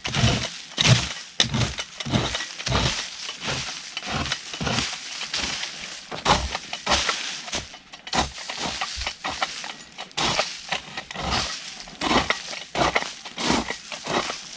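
Dry vegetation cracking and snapping in quick, repeated strikes, about two a second.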